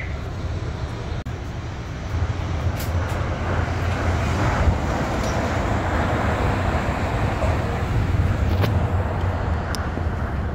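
A Tokyo Monorail train running alongside the station platform: a steady rushing rumble with a low hum that builds about two seconds in and stays up.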